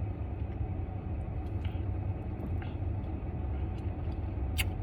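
Steady low vehicle rumble heard from inside a car, with a few faint clicks.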